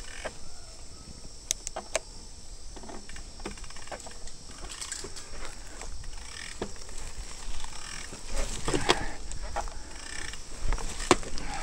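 Mountain bike being ridden over a rough, overgrown trail: irregular clicks, knocks and rattles from the bike over a rustling background.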